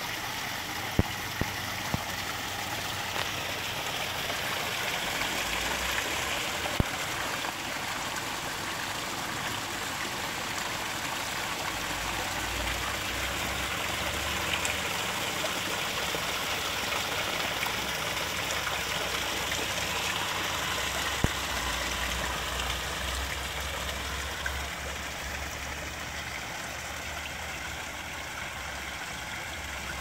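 Water of a pondless garden waterfall splashing down small stone ledges into its basin, a steady, even rush. A few brief sharp clicks sound over it, and a low rumble sits underneath in the second half.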